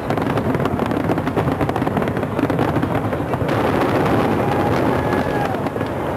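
Aerial fireworks in a rapid barrage: a dense, unbroken run of shell bursts and crackling reports overlapping one another. A few thin whistles come through in the second half.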